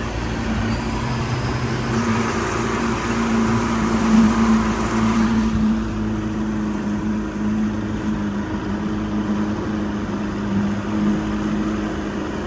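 An engine running steadily at a constant speed, a low hum with a hiss over it that drops away about halfway through.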